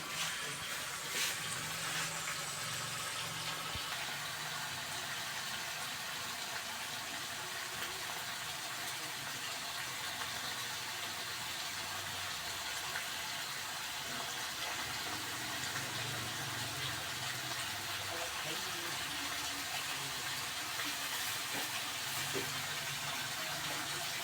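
Steady sizzling of food frying in hot oil in a pan.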